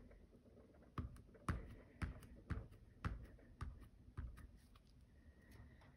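Kneaded eraser patted against the paper of a colored-pencil drawing, giving a run of faint, light taps about twice a second as the dark marks are lifted and toned down.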